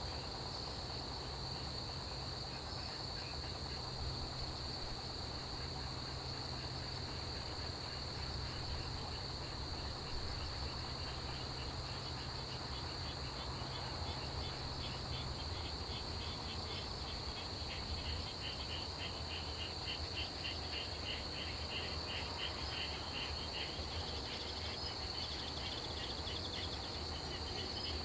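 A chorus of autumn crickets and other grass insects singing: a steady high-pitched trill, joined about halfway through by a second insect's rapid pulsed chirping.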